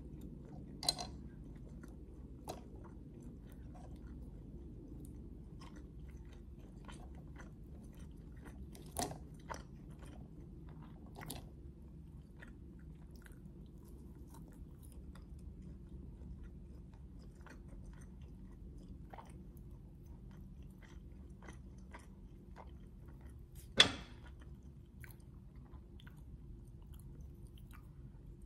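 Close-miked chewing and biting of grilled chicken satay pulled off bamboo skewers, with small wet mouth clicks throughout. A few sharp louder clicks stand out, the loudest about 24 seconds in.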